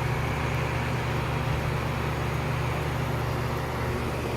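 Outdoor condensing unit of a 2002 Lennox Elite Series central air conditioner running steadily: a low hum from the Copeland scroll compressor under the whoosh of the condenser fan. It is a remarkably quiet unit.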